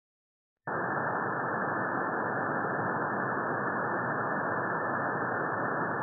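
Steady radio static hiss from an SDR receiver's audio, narrow and muffled like a sideband audio filter, cutting in abruptly about a second in and holding at an even level.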